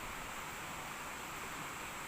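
Steady hiss-like outdoor background noise with no clear events.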